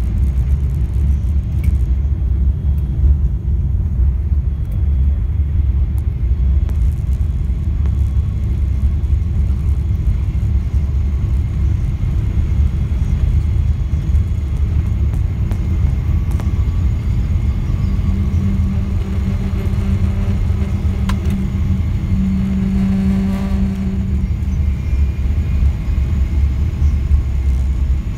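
Steady low rumble of an airliner cabin as the jet rolls along the ground after landing: engine and rolling noise. A low hum comes in for a few seconds past the middle.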